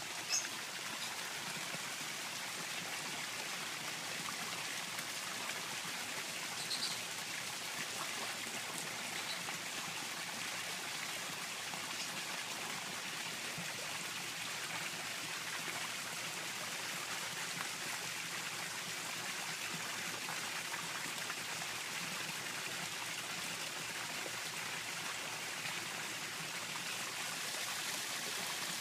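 Steady trickling and splashing of water running into a garden koi pond from a small waterfall. Two brief high chirps, one just after the start and one about seven seconds in.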